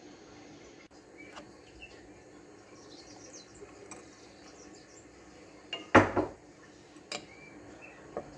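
A metal spoon knocking and clinking against a glass cup as pearl millet flour is mixed with water: one loud double clatter about six seconds in, then a couple of lighter clinks.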